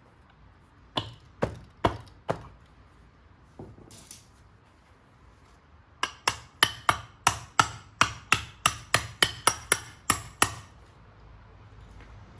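Hammer tapping an air-conditioning compressor's magnetic clutch pulley onto the compressor to seat it. Four sharp knocks about a second in, then a run of over a dozen quicker strikes, about three or four a second.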